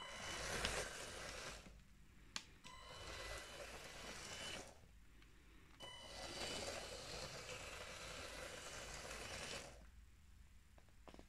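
LEGO train motor running in three spurts, starting and stopping as the train is driven along plastic track: about two seconds, then two, then four. A sharp click of a button press sounds between the first two runs.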